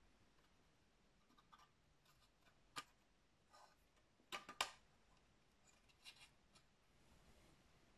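Faint small clicks of plastic model road wheels being pushed onto their axle stubs on a plastic tank hull: one click about three seconds in, a louder pair about a second later, then a few fainter clicks.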